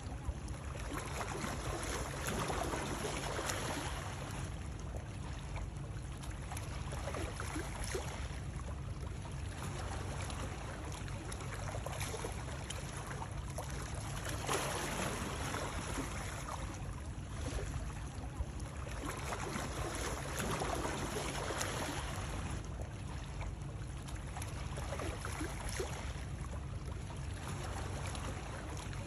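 Water running and lapping continuously, swelling and easing every few seconds, with small splashes throughout.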